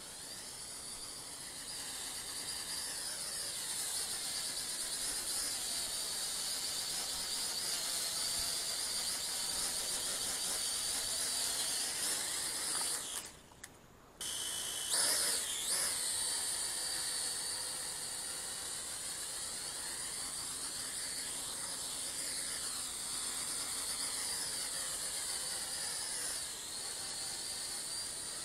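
Small brushed-motor toy quadcopter (FQ777 Mantis) running, its motors and propellers giving a steady high-pitched whine that shifts as it moves. About halfway through the sound cuts out for about a second, then picks up again with a brief louder surge.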